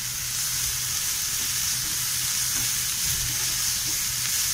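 Chopped onion, capsicum and tomato sizzling in a nonstick pan as they are stirred with a spatula: a steady frying hiss.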